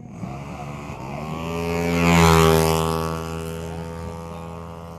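Tuned 200cc Yamaha Mio drag scooter's engine at full throttle, its pitch climbing over the first second and a half and then holding high as it passes. It is loudest a little over two seconds in and then fades.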